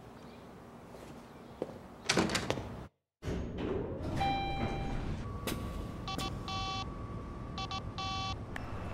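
A door closing with a heavy thunk about two seconds in. After a brief cut, an elevator chime sounds, then a smartphone ringtone for an incoming call: two groups of rapid repeating electronic tones over a steady tone.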